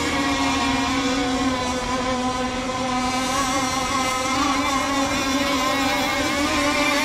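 Radio-controlled racing boat running flat out across the water, its motor giving a steady high-pitched whine with many overtones that wavers only slightly.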